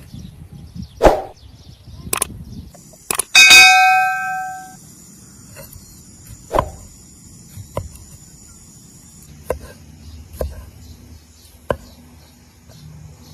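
Metal cookware knocking and clattering, with one loud ringing clang about three and a half seconds in that dies away over about a second, then a few lighter knocks.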